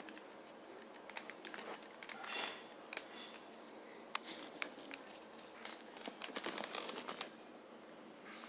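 Handling noise: scattered small clicks and rustles as the camera and tablet are shifted about, busiest about six to seven seconds in.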